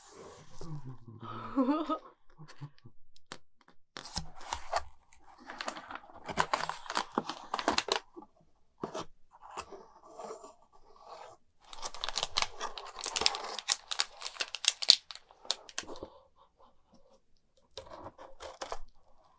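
Close-miked handling of a cardboard box and its contents: bursts of scraping, rustling and tearing as the box is opened and the toy's bagged plastic pieces are moved, with many sharp clicks and ticks of plastic.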